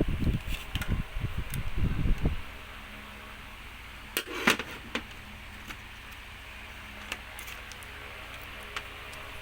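Hands working on the internals of an opened LCD/LED TV. There are knocks and rubbing for the first two seconds, then a steady background hum broken by a few sharp clicks, the loudest about four and a half seconds in, typical of cables being unplugged and parts handled during disassembly.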